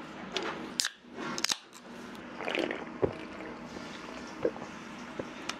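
A few sharp clicks and knocks of chopsticks and a soda can being handled, then a few small gulps as soda is drunk straight from the can.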